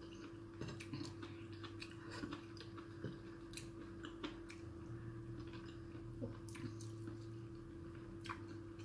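Faint close-up chewing and biting of food, with small irregular mouth clicks and smacks, over a steady low hum.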